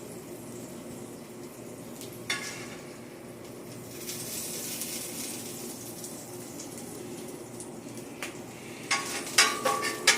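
Food sizzling steadily on a steel griddle, with a single sharp knock about two seconds in and a few sharp metal clatters near the end.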